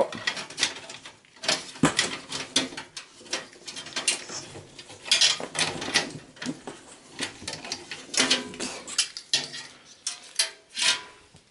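Irregular metallic clicks, rattles and scrapes of a small front USB and audio port panel and its cables being handled and pulled out through a steel computer case.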